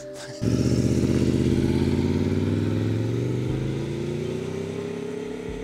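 Aprilia Tuono V4 motorcycle engine idling briefly, then pulling away about half a second in. Its note rises steadily as it accelerates and fades into the distance.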